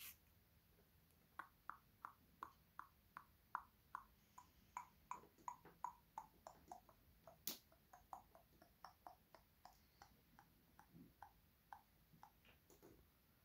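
Longhorn beetle larva chewing insect jelly, its mandibles making a rapid run of faint, crisp clicks at about three a second. The clicks start about a second and a half in and thin out near the end, with one sharper click about halfway.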